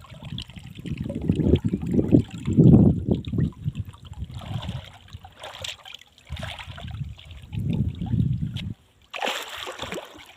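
Water splashing and sloshing in a pond, coming in several surges with short pauses between them.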